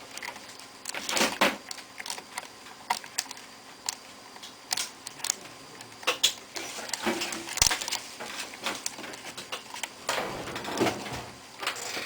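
Irregular small clicks and taps of plastic and metal laptop parts being handled and small cable connectors being pushed into place inside an opened laptop.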